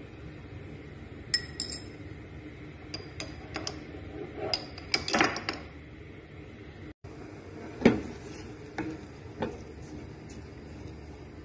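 Utensils clinking and knocking against a metal cooking pot: a scatter of sharp clinks in the first half, then three separate knocks while the sauce is stirred, the loudest about eight seconds in, over a steady background hiss.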